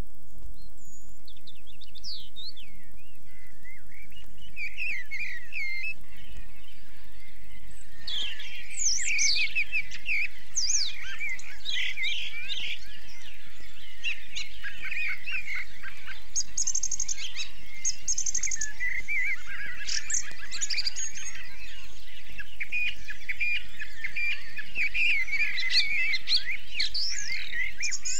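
Wild birdsong from a vinyl LP of bird recordings. A few scattered chirps and trills build about eight seconds in to a dense chorus of several birds singing at once, over a steady low hum.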